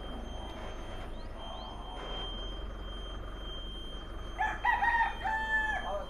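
A rooster crows once near the end, a drawn-out call of about a second and a half, over a low steady rumble.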